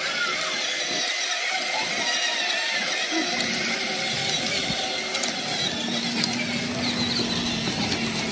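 Two children's battery-powered ride-on toys, a Power Wheels Dodge truck and a toy tractor, driving along together. Their small electric motors and plastic gearboxes whir and rattle steadily, with a low, steady whine joining in about halfway through.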